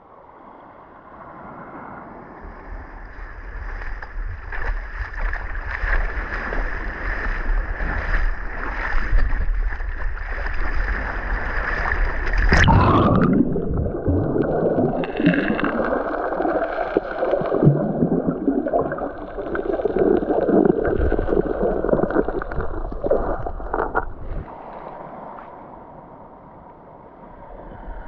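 Sea water sloshing and gurgling close to the microphone, with wind on the microphone; about twelve seconds in the sound turns suddenly muffled and bubbling, as when the camera goes under the surface, then eases off near the end.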